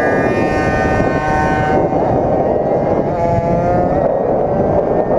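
GoPed GSR46 stand-up scooter's small two-stroke engine running at high revs, a high, nearly steady buzz over rushing wind noise, its pitch sagging a little midway and then climbing back.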